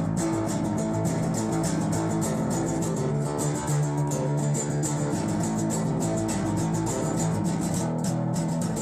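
Background guitar music with a steady beat.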